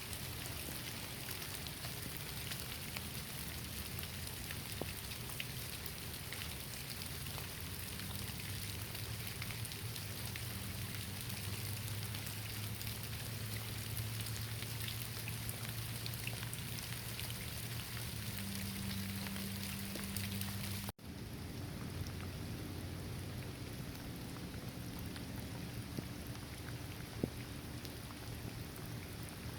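Steady rain falling on leaves, a dense even hiss dotted with single drop ticks. The sound cuts out for an instant about two-thirds of the way through, then carries on unchanged.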